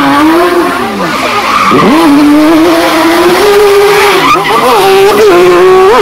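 A loud vehicle sound with a strong tone whose pitch wavers up and down, dipping sharply about two seconds in and climbing back.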